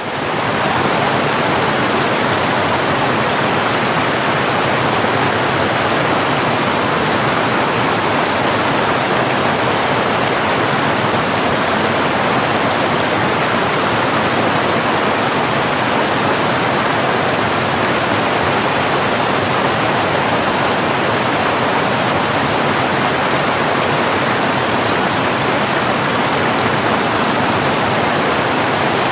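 Rushing water: a dense, even roar with no single splashes or drips standing out, rising to full level within the first second and then holding steady.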